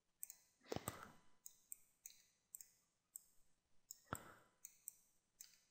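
Faint, scattered clicks of a computer mouse and keyboard, with two louder clicks about a second in and about four seconds in.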